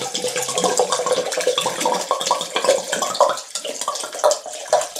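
Red wine pouring from an upturned 750 ml bottle into a blender jug over diced mango, the stream splashing and gurgling unevenly as the jug fills.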